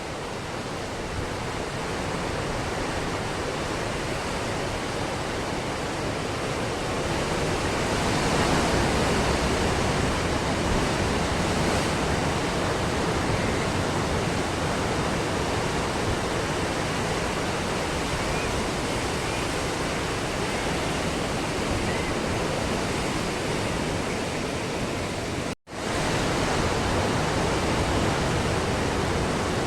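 Ocean surf washing continuously onto a beach, a steady rushing of breaking waves that swells louder about a third of the way in. Near the end the sound cuts out completely for a split second.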